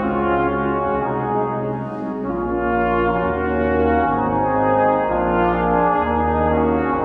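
Brass quartet of two trumpets, French horn and tuba playing held chords, with the tuba's bass notes changing about every second.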